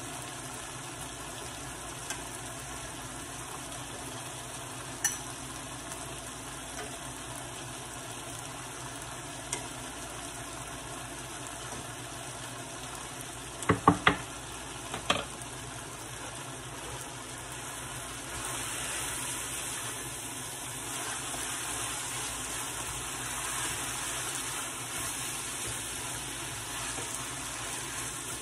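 Chicken fajitas with peppers and onions sizzling in a hot skillet, with ripe plantain slices frying in a second pan. A few sharp clacks come about halfway through, and the sizzle grows louder and hissier for the last third.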